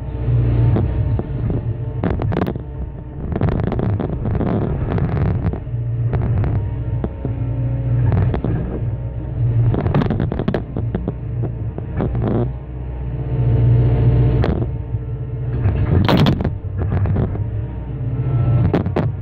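Excavator diesel engine running under load while its hydraulic crusher jaws crush concrete slabs that hold refrigeration pipe, with repeated sharp cracks and crunches of breaking concrete over the steady engine drone. The loudest cracks come about 16 seconds in.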